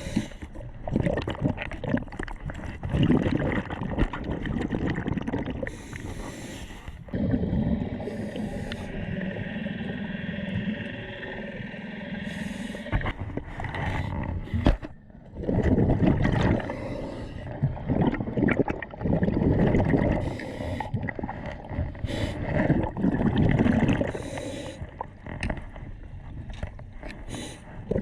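A snorkeler's breathing through a snorkel mixed with water gurgling and sloshing, heard in swells every few seconds with short hissy rushes of air and bubbles.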